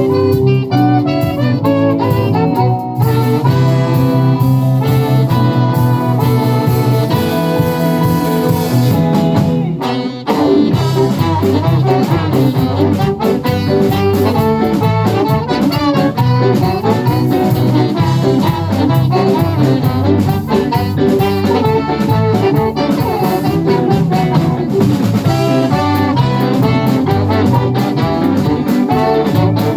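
Live band playing a song, with sustained chords at first and a denser, busier passage after a brief dip about ten seconds in.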